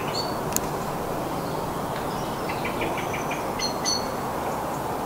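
Outdoor ambience: a steady rushing noise with a few short, high bird chirps over it.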